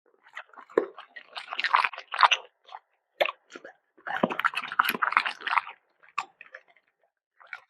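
A pet chewing food close up, with wet crunching bites in two main bouts and a few last chews near the end.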